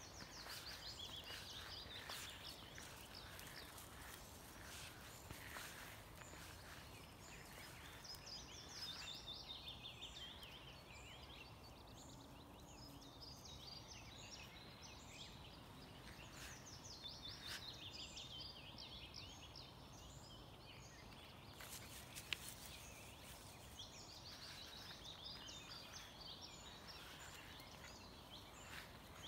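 A songbird singing: a short run of high notes falling in pitch, repeated four times about every eight seconds. Other small chirps are scattered between the songs over a faint steady outdoor hiss.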